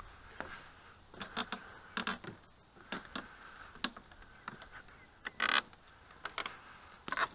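Footsteps crunching on dry grass and gravel along an overgrown rail track: an irregular string of short crunches, with one longer, louder scrape a little past halfway.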